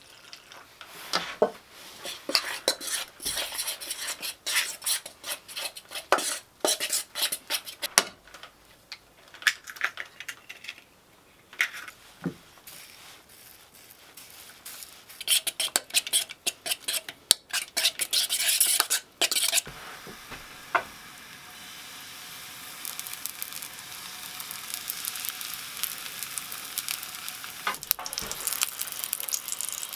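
A metal spoon stirring batter in a metal pot, clinking and scraping against its sides in fits and starts for the first two-thirds. Then pancake batter sizzles steadily in a frying pan, growing slightly louder, with a few clicks of a metal spatula.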